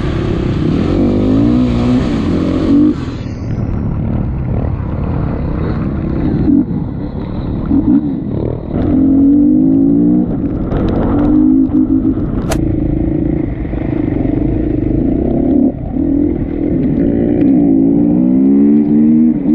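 KTM 350 dirt bike's single-cylinder four-stroke engine under way, heard close up from on the bike, its pitch climbing again and again as it revs up through the gears and dropping back between. One sharp click about twelve seconds in.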